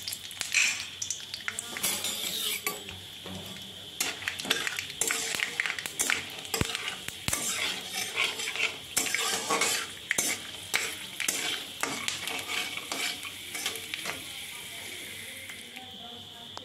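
Peanuts frying in hot oil in a metal kadai, sizzling steadily, while a metal spatula scrapes and clinks against the pan as they are stirred. The stirring is busiest in the middle and eases off near the end.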